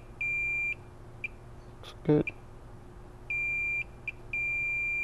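Digital multimeter in diode mode beeping as its probe is touched to test points on a phone logic board. There are three beeps of about half a second and a few short blips, all on the same steady high tone. A brief vocal sound comes about two seconds in.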